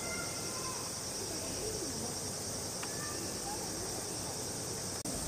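A steady high insect chorus, a continuous buzz, with faint voices murmuring underneath.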